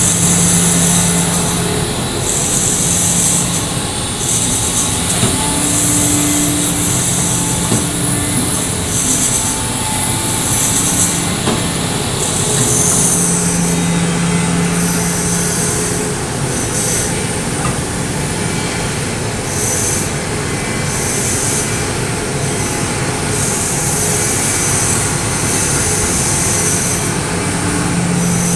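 Sany SY365H hydraulic excavator working, its diesel engine running steadily under load. Over it, a high-pitched squeal comes and goes in stretches of a second or two.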